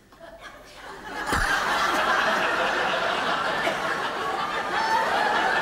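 Large audience laughing. After a brief hush it sets in with a low thump about a second in, then holds steady.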